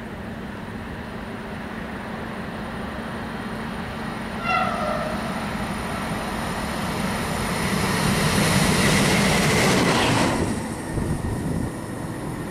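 Vossloh G1206 diesel-hydraulic locomotive running light, sounding one short horn note about four and a half seconds in. Its engine and wheel noise then grow louder as it approaches and passes, and the sound drops away abruptly about ten seconds in.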